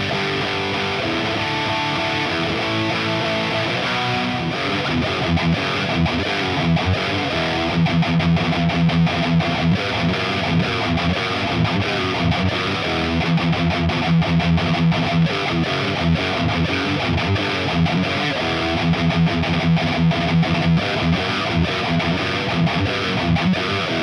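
Electric guitar, a 1987 Charvel Model 6, played with distortion through a 1978 Marshall Super Bass head and 4x12 cab. It starts with held chords; about five seconds in it moves into a driving rhythmic riff of repeated low notes and chords.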